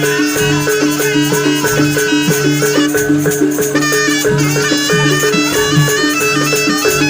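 Live East Javanese jaranan gamelan music. Tuned gongs ring a steady, evenly repeating pattern over a low pulsing note, with a high stepping melody above. About three seconds in there is a brief hissing crash.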